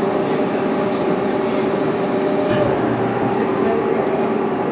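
CNC lathe running: a steady mechanical hum and noise with an even, unchanging tone.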